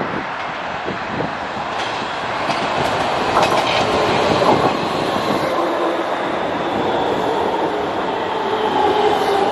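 A Helsinki metro train runs into the station alongside the platform, its wheels rolling and knocking over the rails and growing louder as it draws near. From about halfway in, a faint whine sits over the running noise.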